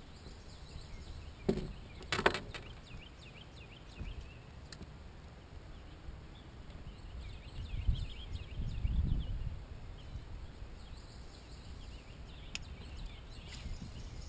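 Two knocks on a fiberglass boat deck, about one and a half and two seconds in, the second louder with a short hollow ring, and a low rumble about eight seconds in. Birds sing throughout in short falling chirps.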